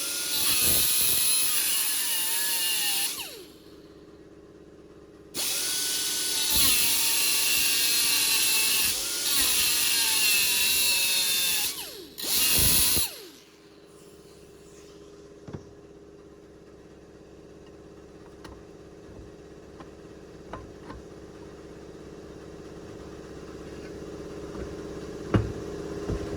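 Power cutting tool whining as it cuts into the old wheel bearing race pressed on the hub, in three runs, the pitch dipping as it bites under load and the last run short. It then stops, leaving a quiet stretch with a few light clicks.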